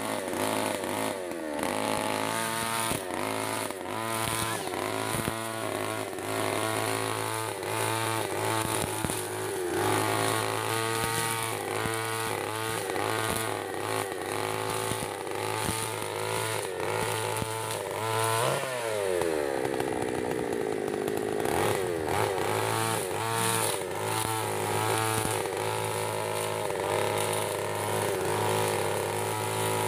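Backpack brush cutter's 63cc Koshi two-stroke engine, converted from a go-ped engine, running under load while cutting grass, its pitch rising and falling about once a second as the throttle is worked. About two-thirds of the way through it drops steeply toward idle for a few seconds, then revs back up.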